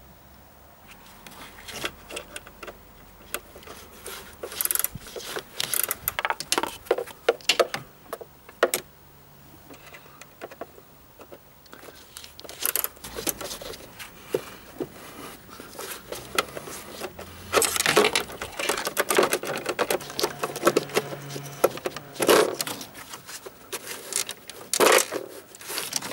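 Hand tool clicking and clinking against metal in irregular bursts with short pauses, as the mounting bolts of a car's auxiliary drive belt plastic cover are undone.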